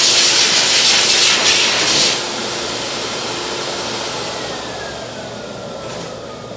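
High-velocity pet dryer blowing a loud rush of air, then switched off about two seconds in, its motor winding down with a slowly falling whine.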